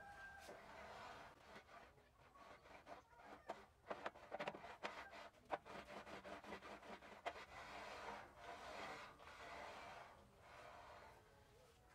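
Faint metal-on-metal rubbing of a heavy steel plate slid back and forth by hand along the steel slide rails of a homemade lathe cross slide, whose faces have been hand-scraped for full contact. There is a run of light clicks and knocks in the middle.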